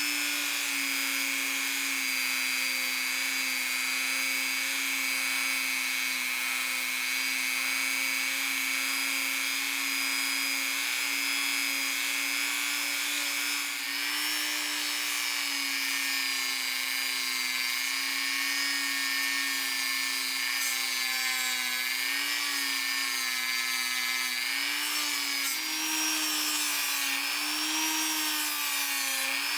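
Small high-speed rotary tool running steadily with a polishing wheel, its pitch sagging and wavering from about halfway through as it is pressed against the brass while polishing with Flitz.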